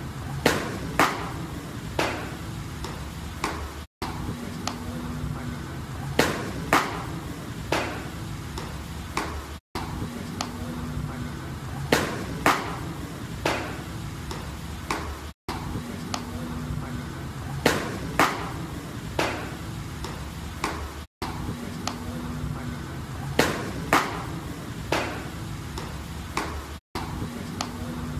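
Fastballs smacking into catchers' leather mitts in a bullpen: sharp cracks, two close together and then another a second or so later. The same short clip repeats about every six seconds.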